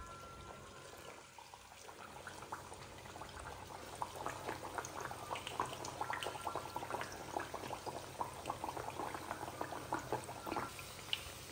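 Jaggery thepla dough deep-frying in hot oil: a crackling sizzle that starts about two seconds in and grows busier from about four seconds.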